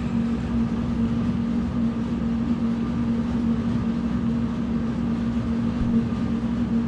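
Motorized treadmill running steadily with a constant hum, under a runner's footfalls on the moving belt.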